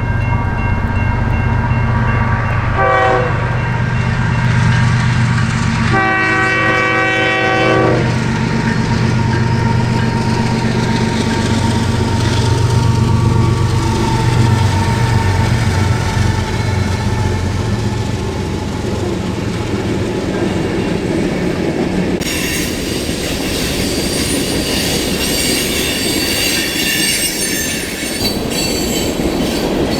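Diesel freight train passing: the locomotive's engine drones while its multi-chime horn sounds a short blast about three seconds in and a longer one a few seconds later. Rail cars then roll by with steel wheels squealing against the rails from about two-thirds of the way through.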